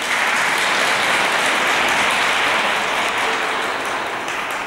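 Audience applauding, a dense steady patter of clapping that eases off slightly near the end.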